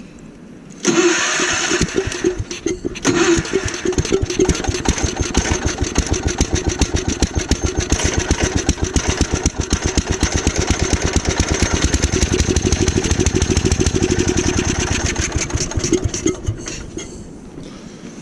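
Gravely Commercial 12 snowblower engine catching about a second in, stumbling briefly, then running for about fifteen seconds before dying out. The owner takes the stalling for a fuel-delivery problem at the carburetor.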